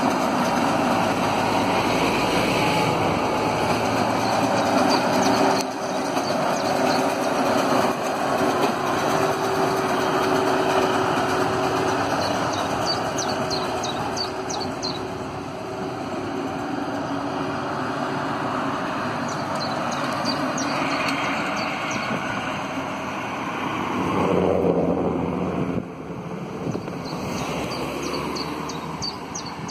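New Holland T7 tractor running with a New Holland BigBaler large square baler working behind it, a steady mechanical running noise of engine and baler.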